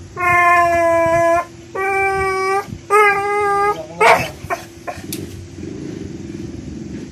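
American Bully dog howling in annoyance: three drawn-out calls held at a steady pitch, then a short, sharp bark about four seconds in.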